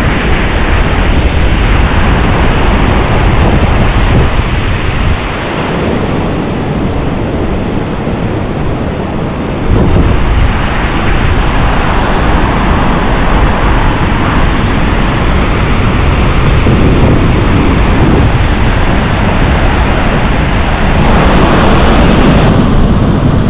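Wind buffeting the microphone over the rush of surf breaking on the beach, a steady loud noise that eases off for a few seconds before picking up again.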